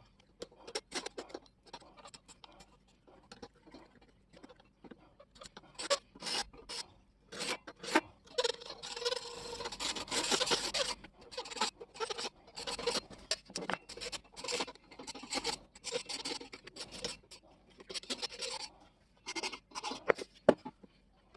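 Hand abrasive work on an old car radio's housing: irregular rasping, rubbing strokes, running on without a break for a few seconds near the middle.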